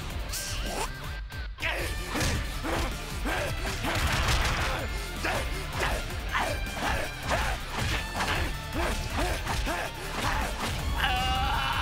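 Anime fight sound effects: the sound drops to near silence for a moment about a second in, then a rapid run of heavy crashing punch impacts plays over dramatic music.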